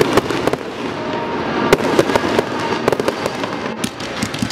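Aerial fireworks bursting and crackling in a rapid, uneven string of bangs, the loudest about two seconds in.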